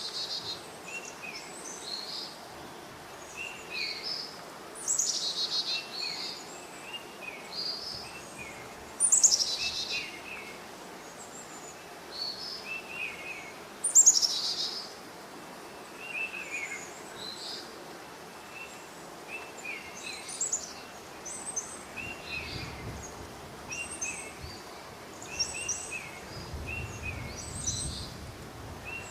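Several forest birds calling, with many short high chirps and three louder downward-sweeping calls about 5, 9 and 14 seconds in, over a steady hiss of light rain.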